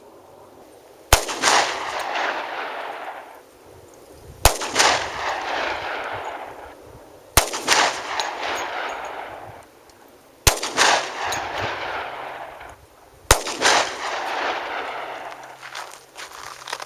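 Five shots from a Glock 20 10mm Auto pistol firing 180-grain full metal jacket rounds, spaced about three seconds apart. Each shot is a sharp crack followed by a long rolling echo that fades over about two seconds.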